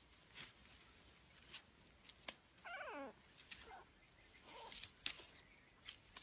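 A kitten gives one meow that falls sharply in pitch about three seconds in, then two fainter short calls, over scattered rustling and clicks of grass as it tussles with a rat.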